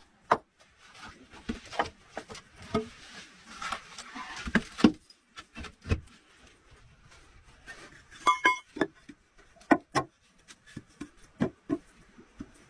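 Irregular knocks and taps of hands-on work, with bursts of rustling and a short ringing clink about eight seconds in.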